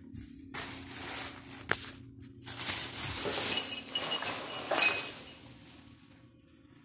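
Plastic bag crinkling and rustling as it is handled, in several noisy spells with a sharp click partway through, fading away near the end.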